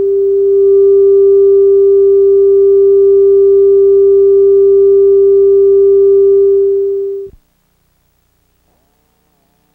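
Steady single-pitch test tone of a television station's test pattern, swelling in over the first second and cutting off suddenly about seven seconds in.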